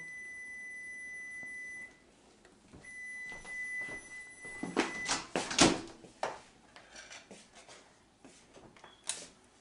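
A steady, high electronic beep-tone sounds twice, first for about three seconds and then for about two. Kitchen knocks and clatter follow, the loudest a sharp knock a little past the middle, then scattered small clicks.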